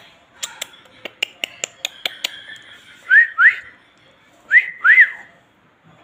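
Alexandrine parakeet whistling: two pairs of short, quickly rising whistles, the loudest sounds, after a run of sharp clicks in the first couple of seconds.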